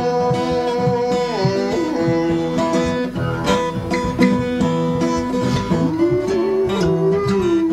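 Acoustic guitar picking a country blues, with a harmonica holding long notes that bend down in pitch.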